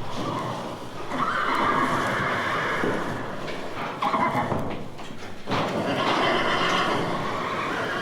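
Recorded animal cries in three long waves, the loudest starting about one second in and again about five and a half seconds in.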